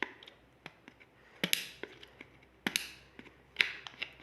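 A tool cutting and prying at the dust cap of a 4-inch loudspeaker cone, working it loose: a handful of sharp, short scraping clicks about a second apart.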